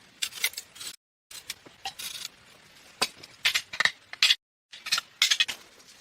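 Hard objects clinking and knocking in quick, irregular succession, broken twice by a brief dead silence.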